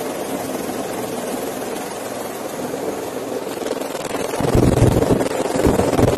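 Bell Boeing V-22 Osprey tiltrotor in low flight, heard from inside the cockpit: a steady rush of engine and proprotor noise. Heavy, irregular low rumbling comes in about four seconds in and makes it louder.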